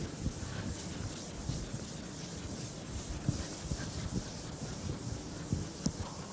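Blackboard eraser rubbing chalk off a chalkboard: a steady scrubbing with scattered small knocks.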